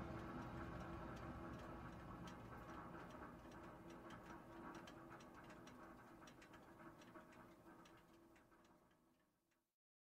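A 16-foot diesel box truck's engine running, a low steady hum with a light, rapid ticking over it, fading away and cutting off shortly before the end.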